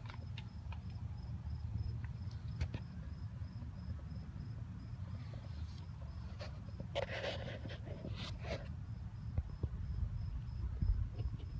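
Faint, high insect chirping, repeating a few times a second, over a low steady rumble, with scattered clicks and two short rustles partway through.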